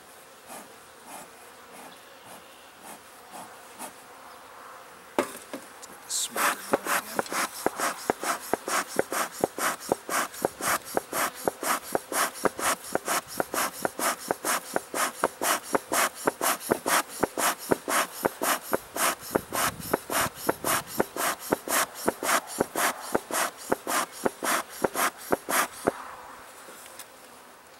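Honeybees buzzing around an open hive. From about six seconds in until near the end, a fast, regular series of loud rasping strokes, about three a second, runs over the buzz and then stops.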